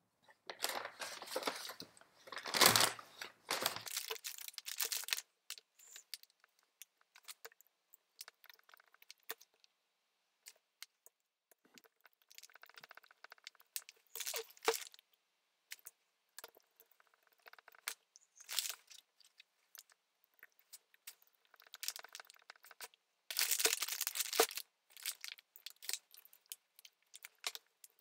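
Paper crinkling and rustling as the motor is handled on its paper sheet, loudest in the first few seconds and again near the end, with scattered small clicks of a screwdriver and metal parts as the chain guard is screwed on.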